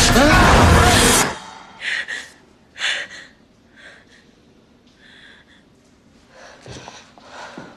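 A loud rushing noise with sweeping tones cuts off suddenly just over a second in. It is followed by a series of short, sharp gasps and breaths from a person in a struggle.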